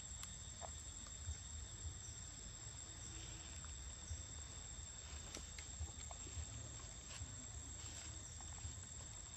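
Faint outdoor ambience: a steady high-pitched insect drone over a low rumble, with scattered soft clicks and taps.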